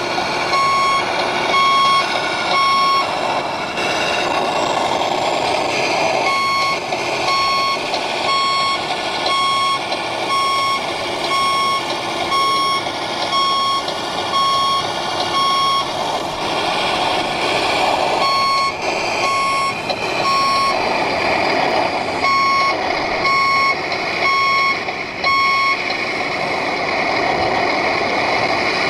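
Reversing beeper of a radio-controlled model truck's sound module, sounding short beeps about once a second with a few pauses as the truck backs up. A steady background noise runs underneath.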